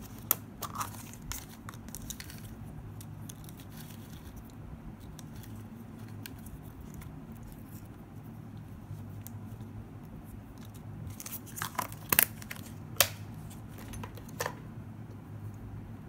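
Small clear plastic tub of paper cutouts being handled. A sharp plastic click as the lid comes off near the start, then faint rustling of the paper pieces. A cluster of sharp plastic clicks and crinkles comes near the end, over a steady low hum.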